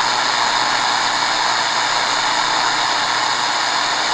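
Shortwave static hissing steadily from the Tecsun R-9700DX portable radio's speaker, with no station coming through.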